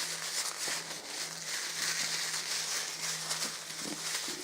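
Toilet paper rubbed back and forth over a phone's glass screen, a steady papery scrubbing with a few small ticks, over a steady low hum.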